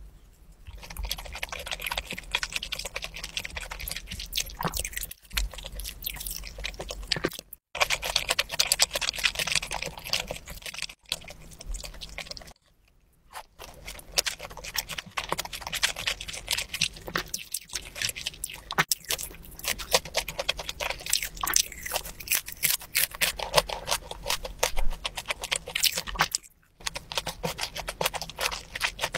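Close-miked ASMR chewing of sashimi and sushi: a dense run of wet mouth clicks and smacks with some crunchy bites, broken by a few brief silent breaks.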